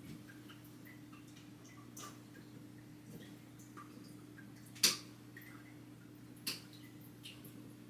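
Scattered small clicks and taps of things being handled, the loudest about five seconds in and another about a second and a half later, over a faint steady hum.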